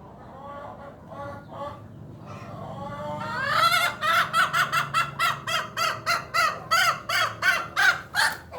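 A hen calling in an odd, unusual voice: soft calls at first, a drawn-out rising call about three seconds in, then a fast run of short repeated calls, about three a second.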